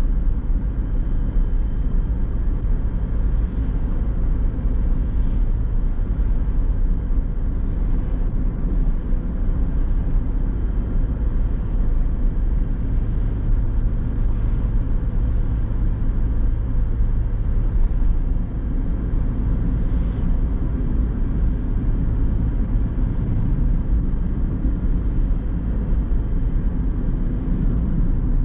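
Steady car driving noise: engine hum and tyre rumble on the road, mostly low-pitched and unchanging.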